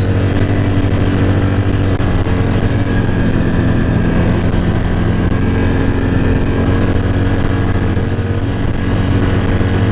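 ATV engine running at a steady, even speed while the machine is ridden along a trail.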